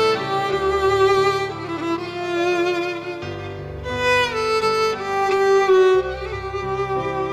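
Instrumental music: a melody of long held notes, some sliding down into the next, over low sustained notes that change every few seconds.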